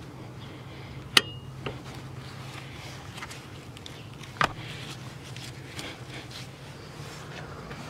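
Sharp clicks and light handling noise from a car seat being worked against a vehicle seat belt buckle: a loud click about a second in with a brief ringing tone, a smaller one just after, and another loud click about four and a half seconds in. A steady low hum runs underneath.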